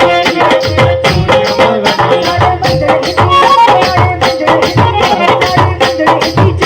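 Live band music: a melody line over a steady, regular drum beat.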